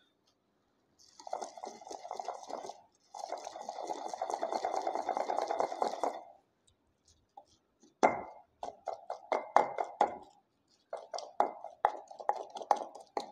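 Wooden pestle grinding wet almond paste in a stone mortar. First there are two stretches of steady rubbing, then a run of separate strokes, about three a second.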